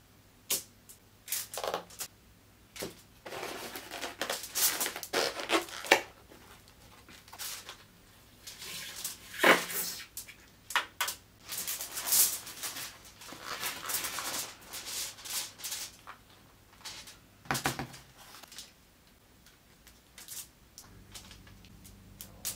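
Plastic takeaway containers and sauce cups being handled and set down on a foil-covered table: irregular clicks, knocks and crinkling rustles, busiest in the middle and thinning out near the end.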